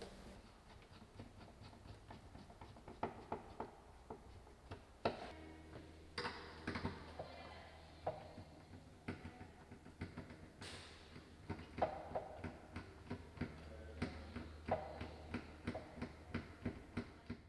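Irregular clicks and light knocks of hands handling a wall-mounted mirror cabinet and setting spirit levels against it, with a faint low hum underneath.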